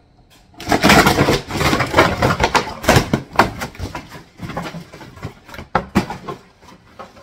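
Cardboard box torn open by hand: ripping cardboard and tape and rustling packing, loudest in the first few seconds and tapering off, with two sharp snaps near the end.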